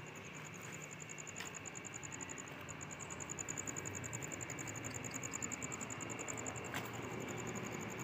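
A rapid, high-pitched pulsing trill that runs on steadily over a low hum, with a sharp click about a second and a half in and another near the end.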